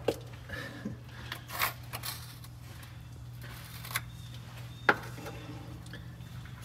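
A few sharp metallic clicks and knocks of a hand tool against a grease-caked drum brake assembly, the loudest about five seconds in, over a steady low hum.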